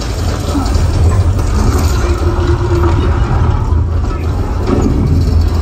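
Deep, steady rumble from a film's sound effects, played back through a home theatre's speakers and subwoofers, with a faint held tone in the middle.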